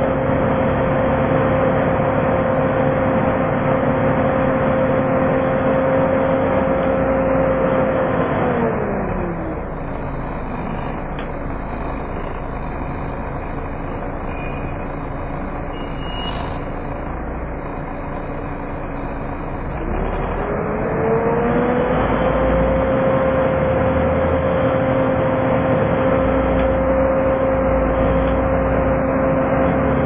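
Volvo B7TL bus's engine cooling fan whining steadily, heard from inside the bus over engine and road noise, with the vacuum-cleaner-like whine that earns it the "Hoover" nickname. About eight seconds in the whine winds down and drops out, and about twenty seconds in it spins back up to its steady pitch.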